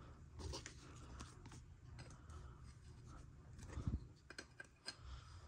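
Faint clicks, taps and rustles of trading cards being handled and set down on a tabletop, with a slightly firmer tap a little before four seconds in.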